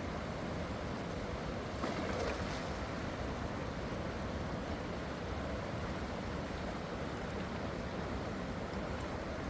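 Steady rush of flowing river water, with a brief louder splash about two seconds in.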